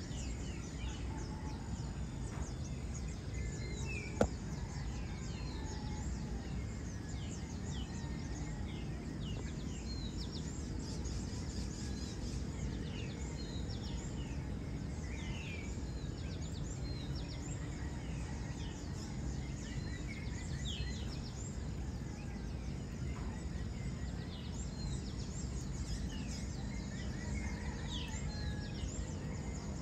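Many birds chirping, short quick calls scattered throughout, over a steady low background rush. A single sharp click about four seconds in.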